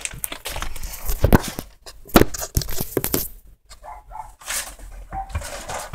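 Close rustling and bumping of a handheld camera being picked up and moved about, with two sharp knocks about a second and two seconds in.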